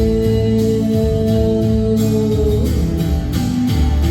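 Live band playing an instrumental passage: guitar over bass and a steady drum beat, with held chord notes.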